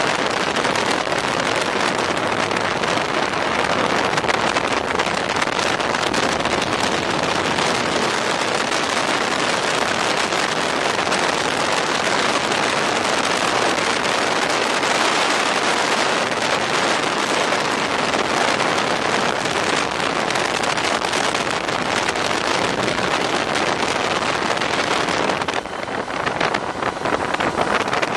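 Steady rush of wind over the camera microphone on a motorcycle moving at road speed, the engine lost in the noise. Near the end the rush briefly drops and turns rougher.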